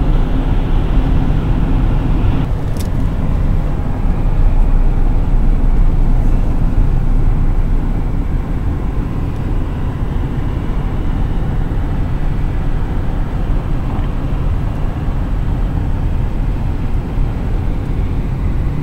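Steady low rumble of a car driving at highway speed, heard from inside the cabin: tyre and road noise.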